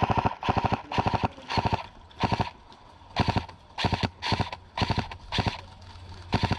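Airsoft electric rifle firing about a dozen short bursts in quick succession, each burst a rapid run of clicks.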